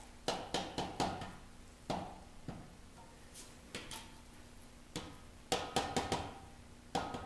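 Brick trowel tapping freshly laid bricks down into their mortar bed to bring the course level, a series of irregular sharp knocks, some in quick runs of three or four.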